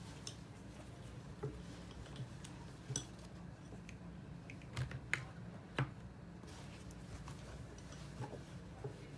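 Acrylic paint tubes being handled and set down on a wooden tabletop: a few scattered light clicks and taps, with the sharpest around the middle.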